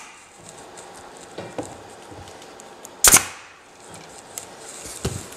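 One sharp strike on the oak chair's wooden frame about three seconds in, with a lighter knock near the end, as the twine end is fastened at its nail; between them, faint handling of the twine and frame.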